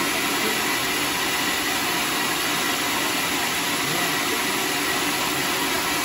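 Band sawmill running steadily while sawing a hollow teak log, a continuous even whirring noise of motor and blade with no pauses or knocks.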